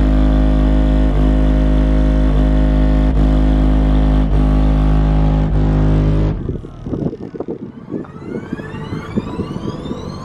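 Bass-heavy music played loud through a car stereo's two ported Rockford Fosgate P3 12-inch subwoofers, heard from outside the car: a deep steady bass note with a beat about once a second. About six seconds in, the track turns choppy and quieter, with a rising sweep near the end.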